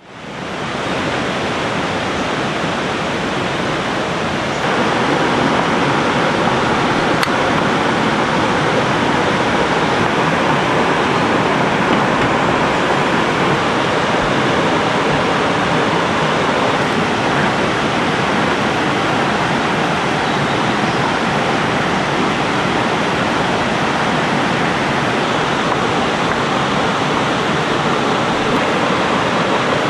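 River water rushing and gurgling steadily over rocks, a continuous even roar that fades in and grows a little louder about four and a half seconds in.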